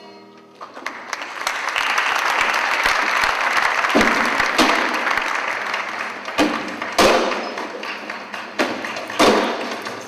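Audience applause swelling up and then thinning. From about four seconds in, heavy thumps come in pairs about half a second apart, a new pair every two seconds or so, three pairs in all.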